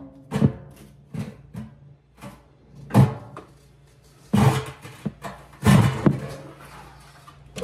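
Irregular sharp knocks and clanks, about ten of them with short rings, as tools and the dryer's sheet-metal cabinet panels are handled.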